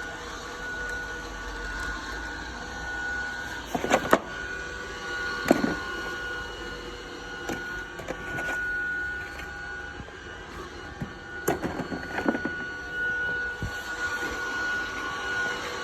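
Vacuum cleaner running with a steady whine. A few sharp knocks come about four and five seconds in, and a cluster more around twelve seconds in.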